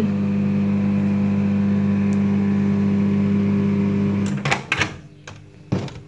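LG microwave oven humming steadily as it heats, then cutting off about four seconds in. A few clicks and a knock follow as the door is unlatched and opened.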